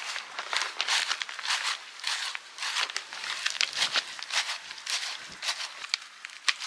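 Hand scoop stirring and scraping through granular potting soil in a plastic pot, a quick, irregular run of gritty crunching scrapes.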